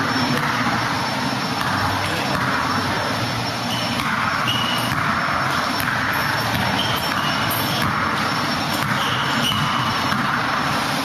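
A basketball being dribbled on an indoor court, with several short, high sneaker squeaks, over a steady loud rushing noise.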